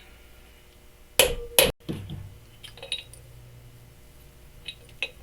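Two sharp hammer blows on metal about a second in, a fraction of a second apart, each with a brief ring, knocking the outer race of a worn outer wheel bearing out of a truck's front hub; a few light metallic clinks follow.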